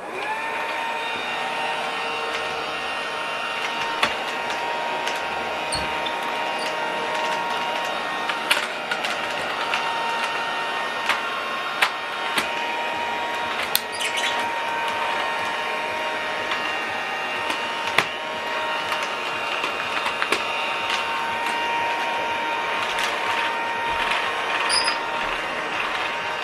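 Battery-powered children's toy vacuum cleaner switched on and running steadily with a motor whine, scattered with sharp clicks and ticks.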